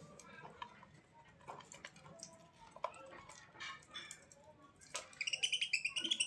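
Bird chirping: scattered soft clicks and short calls, then, about five seconds in, a rapid run of high chirps that rises slightly in pitch.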